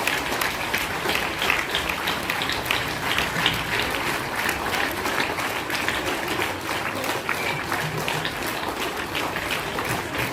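A crowd of students applauding, a dense, steady patter of clapping hands.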